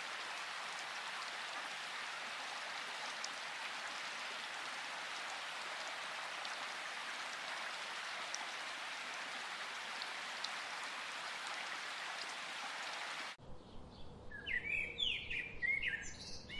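Steady rain falling, with a few sharper drip ticks. About thirteen seconds in it cuts off abruptly to a different recording of birds chirping in short calls.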